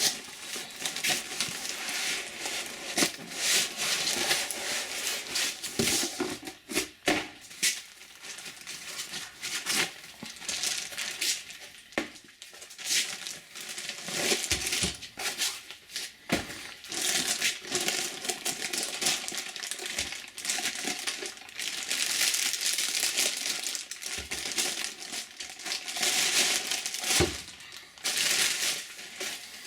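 Packaging crinkling and rustling as it is handled and unwrapped, with scattered sharp clicks and knocks of parts being set down.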